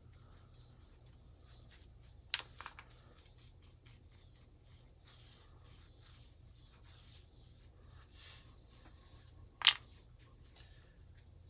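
Light scratching of a paintbrush working paint onto a cork decoy, with two sharp clicks, one about two seconds in and a louder one near the end.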